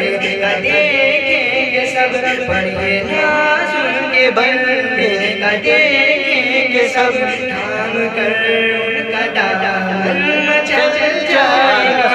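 A man singing an Urdu naat into a microphone, drawing out long, wavering melodic notes.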